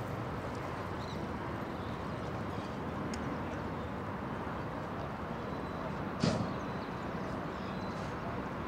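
Steady outdoor background noise with one sharp knock about six seconds in.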